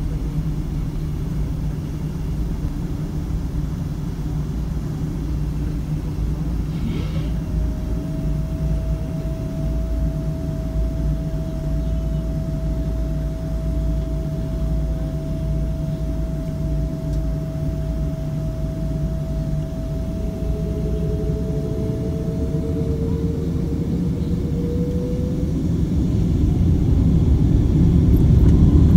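Cabin rumble of a Boeing 777-200ER taxiing, heard from a window seat over the wing, its Rolls-Royce Trent 892 engines giving a steady low drone. A steady whine sets in about a quarter of the way in and stops about three-quarters of the way through, overlapped briefly by a second, rising tone; the rumble grows louder near the end.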